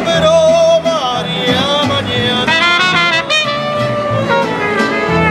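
Mariachi band playing live: a trumpet melody with vibrato over strummed guitars and a pulsing bass line.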